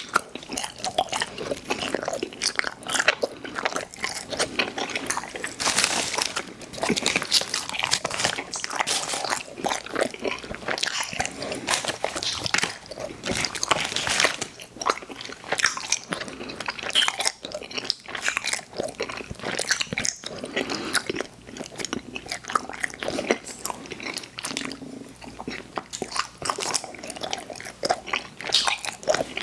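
Close-miked mouth sounds of a person biting and chewing candy, with a dense run of irregular clicks and smacks.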